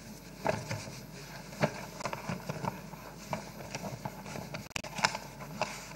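Sheets of paper being leafed through and shuffled close to a microphone: a run of short, irregular crackles and taps.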